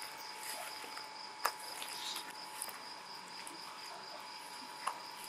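Steady high-pitched insect trill, slightly pulsing, with a lower steady tone beneath it. Two short sharp clicks come about a second and a half in and near the end.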